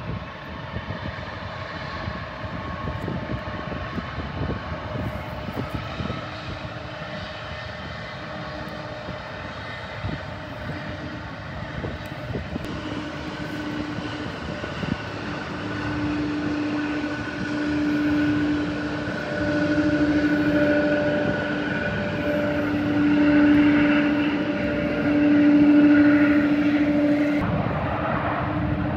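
Airliner engines running, a steady hum with a steady whine that grows louder over the second half, swelling and easing several times.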